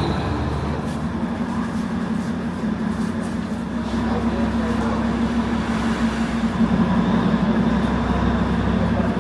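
Darjeeling Himalayan Railway toy train running: a steady rumble of the train on the move, with a low steady hum that grows stronger a few seconds in.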